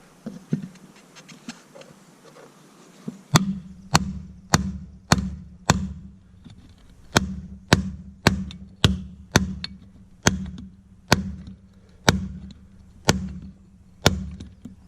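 Hammer blows on an extension used as a drift, driving the old wheel bearing out of an Arctic Cat side-by-side's spindle. A few light taps come first, then from about three seconds in about twenty hard strikes follow at roughly two a second with short pauses, each with a brief low ring.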